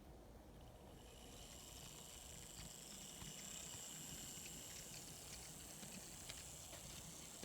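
Kato N scale F3 B unit's motor and worm-gear drive running on test with the shell off, starting about a second in: a faint, steady high whine with light ticking. Run backward it still makes a little noise even after the worm gears were oiled.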